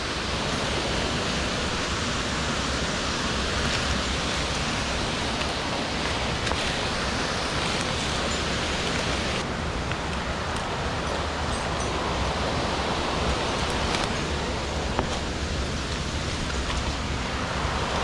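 Steady rushing of a mountain stream's water, with a few faint knocks.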